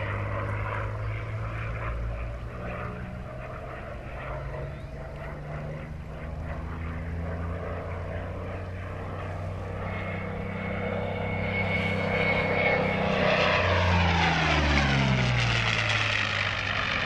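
Curtiss P-40 Kittyhawk's V12 piston engine and propeller droning in a display flight, growing louder as the fighter closes in. Near the end it passes close overhead and the engine note drops in pitch as it goes by.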